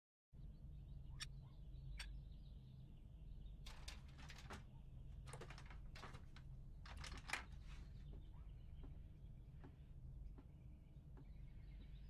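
Near-silent room tone with two faint clicks, then a few short clusters of light clicking and rattling from hand work on a ceiling fan and a stepladder.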